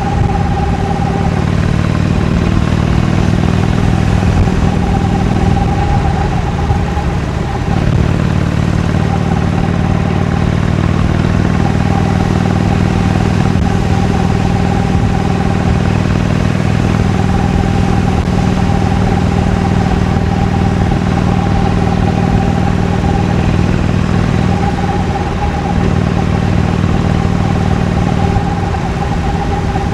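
Harley-Davidson Iron 883's air-cooled 883 cc V-twin running steadily through its stock exhaust while riding. The engine note dips briefly about eight seconds in and again near the end.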